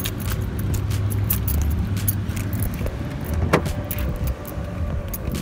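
Keys jangling and a run of small clicks and rattles over a steady low rumble, as a car's rear hatch is opened.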